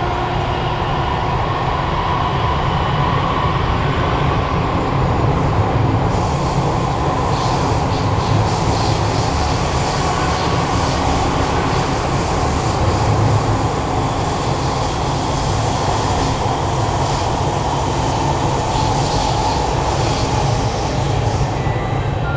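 Kawasaki Heavy Industries C151 metro train (GTO-VVVF traction) running through a tunnel, heard from inside the car: a steady low rumble of wheels on rail with a humming tone that drifts slowly in pitch. A hissing rail noise grows louder about six seconds in and stays.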